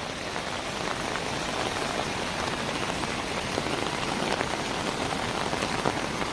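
Heavy rain falling, a steady even hiss with many fine drops pattering on surfaces.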